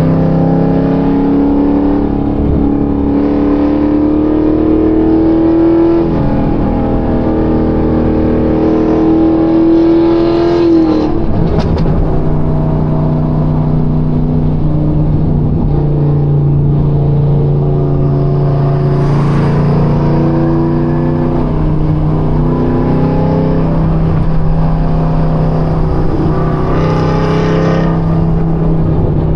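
Chevrolet Camaro ZL1's supercharged V8 under way. It climbs in pitch and drops back twice, about 6 and 11 seconds in, like upshifts, then runs at a fairly steady pitch.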